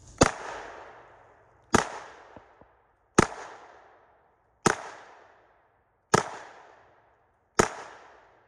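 Six single gunshots from a KRISS Vector Gen II, evenly spaced about a second and a half apart, each echoing away before the next. The shots are fired to check whether the laser and sight are on target.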